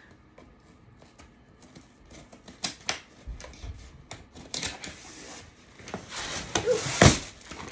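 Scissors clicking and cutting into a cardboard box, then the cardboard flaps being scraped and pulled open, with one louder knock near the end.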